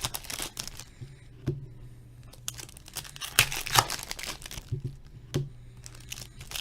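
Hockey card box and pack wrappers being torn open and handled: crinkling and tearing in irregular bursts, loudest about three seconds in, with a few sharp clicks and taps, over a steady low hum.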